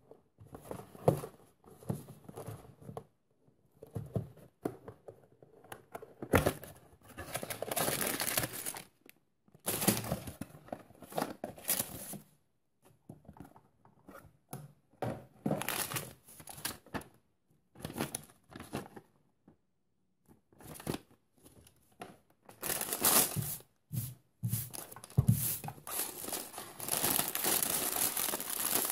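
A small cardboard toy box being handled and opened, with irregular rustling, scraping and tearing of the cardboard. A clear plastic bag of building bricks crinkles more continuously near the end.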